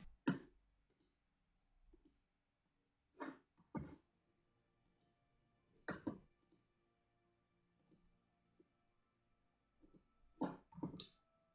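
Faint, scattered clicks and taps from working at a computer, a second or two apart, with a pair of louder clicks near the end.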